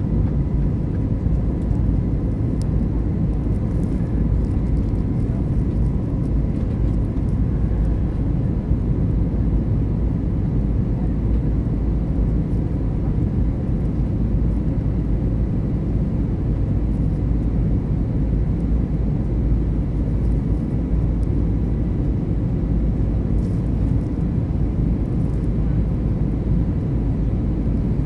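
Steady cabin noise of a jet airliner in flight, heard from a window seat: an even, deep rumble of engines and rushing air, with a faint steady high tone above it.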